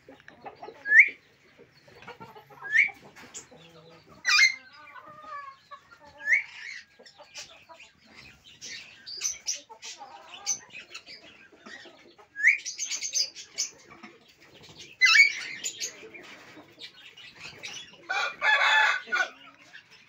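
Alexandrine parakeets calling: short, sharp rising chirps every few seconds and harsh screeching squawks, the longest and loudest about 18 seconds in.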